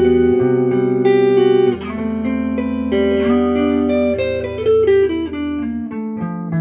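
Electric guitar, a Fender Modern Player Jazzmaster on its neck pickup, played clean through an amp with light reverb. Picked chords and single notes ring and sustain, with sharp new attacks about two seconds in and again a little after three seconds.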